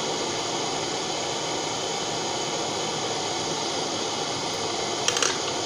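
Small handheld butane torch burning with a steady hiss of flame while heating a crucible of melting borax and silver solder. A couple of short sharp clicks come about five seconds in.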